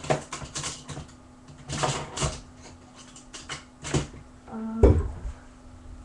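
Rummaging noises: a scattered series of knocks and clatters as things are handled and moved, with the loudest thump about five seconds in, over a faint steady hum.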